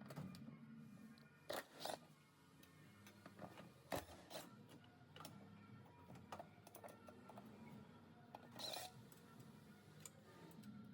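Faint, scattered clicks and knocks of hand tools and metal parts being handled while a car's transmission is taken off, over a low hum.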